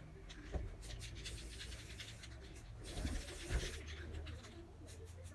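Aerosol spray-paint can hissing in spurts as paint is sprayed on, with two dull knocks of handling, about half a second in and again near three and a half seconds.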